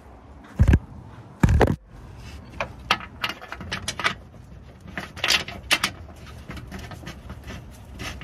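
Plastic engine undertray of a VW Beetle being handled and bolted back on: two heavy knocks near the start, then a run of short irregular clicks and rattles of bolts and tools.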